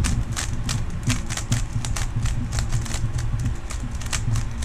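Puzzle cube being turned move after move: a steady run of sharp plastic clicks, about four a second, as the layers snap round, over a low steady hum.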